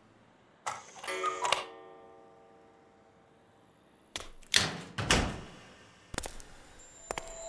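A short, bright tinkling chime with several ringing tones about a second in, then a few sharp knocks and clacks around four to five seconds in and again near the end.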